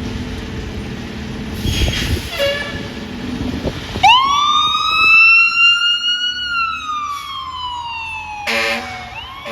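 Fire engine responding: engine rumble, then about four seconds in its siren winds up sharply and slowly falls in pitch, with a short air horn blast near the end.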